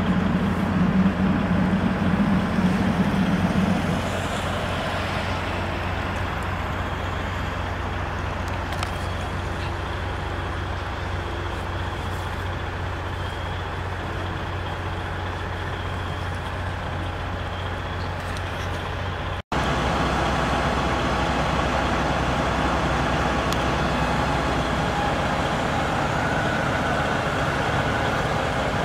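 Fire engine's engine running steadily with a constant low rumble. After a cut about two-thirds in, the sound changes to a louder, even running noise with a faint higher hum.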